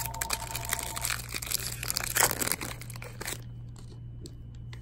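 Foil wrapper of a Panini Absolute Football trading-card pack crinkling and crackling as it is handled and opened, loudest about two seconds in, stopping a little after three seconds. A steady low hum runs underneath.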